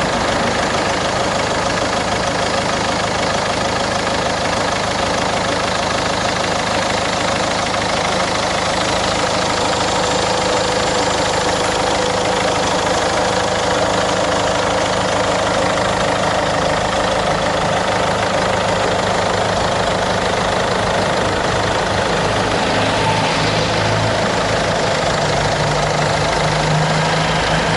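Peugeot-Citroën 1.6 HDi twin-overhead-cam diesel engine idling steadily.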